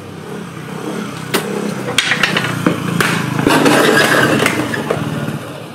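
Motor scooter engine running and growing louder as it passes close, with a few sharp knocks, then a loud scraping crash as the scooter goes down on its side on the road.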